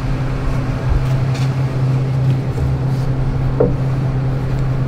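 Steady low machine hum, with a single light knock about three and a half seconds in.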